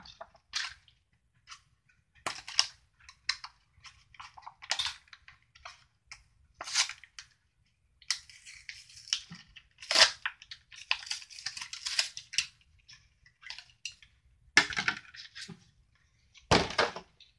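A die-cast toy car's blister pack being torn open by hand: cardboard backing and plastic blister crackling, ripping and crumpling in short bursts, with a longer stretch of crinkling about halfway through and a few sharp snaps near the end.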